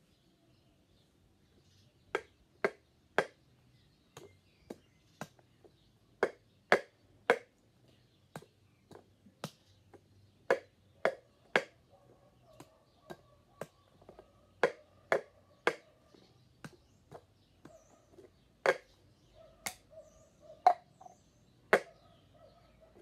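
Plastic cups knocked and tapped on a tiled floor in a steady rhythm of about two strokes a second, starting about two seconds in: groups of three loud knocks alternate with runs of softer taps.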